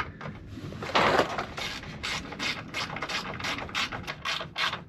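Icon 1/4-inch drive ratchet clicking quickly, about five clicks a second from about a second in, as it runs 8mm bolts down on the fuel filter.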